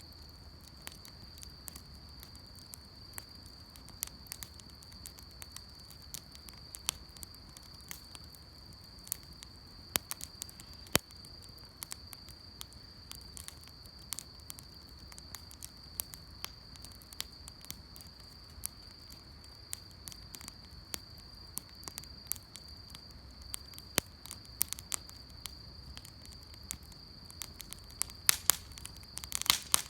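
Wood campfire crackling, with sharp pops scattered throughout and a cluster of louder pops near the end.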